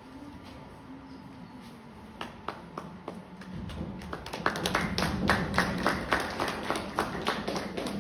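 Audience clapping: a few scattered claps about two seconds in, building into steady applause from about halfway.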